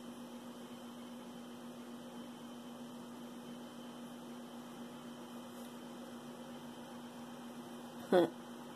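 Steady low electrical hum over faint hiss, with one short vocal sound near the end.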